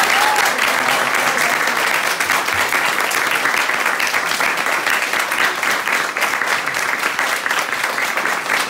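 A roomful of people applauding a joke, many hands clapping steadily and fast.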